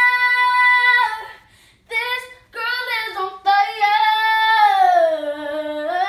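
A young girl singing unaccompanied: a held note about a second in, a short break, then brief phrases and a long wordless run that slides down in pitch and climbs again before it ends.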